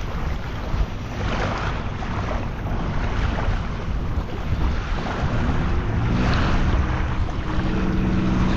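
Wind rumbling on the microphone over small waves lapping at the water's edge. From about six seconds in, a steady motor hum joins.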